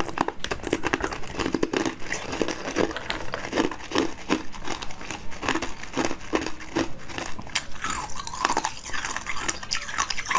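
Close-miked biting and chewing of frozen basil-seed ice pops: crisp ice crunches and crackles follow one another unevenly.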